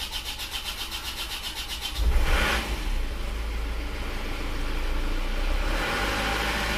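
Isuzu Panther's four-cylinder diesel engine cranked by the starter for about two seconds, then catching and running, its revs rising to a fast cold idle. This is the first start after an overhaul for blow-by, with new piston rings and seals.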